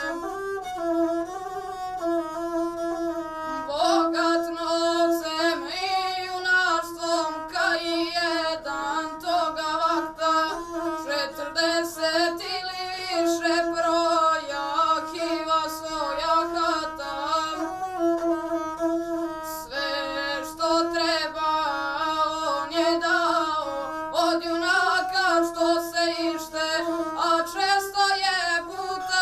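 A boy singing a heroic epic song in the traditional gusle style, accompanying himself on the gusle, a single-string bowed folk fiddle. The voice carries a continuous, heavily ornamented melody over the gusle's steady bowed line.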